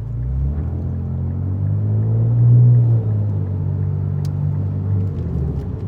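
Infiniti Q60's twin-turbo V6 engine and exhaust droning inside the cabin while driving. The drone swells louder about two and a half seconds in, then holds steady and eases off near the end.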